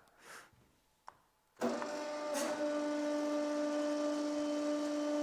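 Hydraulic press's pump motor starting abruptly about a second and a half in and running with a steady, even hum, the press working at about full force.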